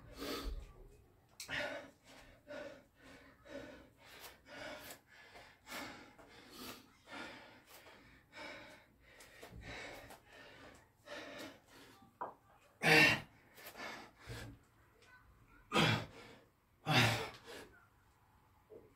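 A man breathing hard and gasping, out of breath from a long set of burpees and kettlebell thrusters. The quick breaths come about once or twice a second, with a few much louder gasps about two-thirds of the way through.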